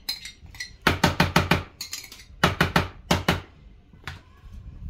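Metal spoon tapping against plastic dishes while scraping out a thick red paste: two quick runs of about five taps each, then one more tap near the end.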